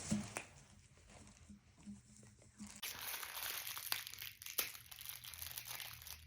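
Plastic fidget toys being handled, crinkling and clicking. About three seconds in it turns into a denser, steadier crinkling rattle.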